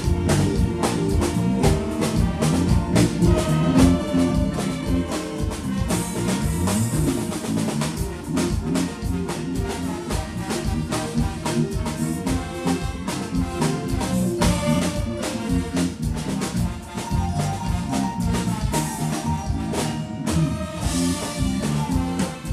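Dance-band music driven by a drum kit keeping a steady, busy beat, with cymbal washes about six seconds in and again near the end.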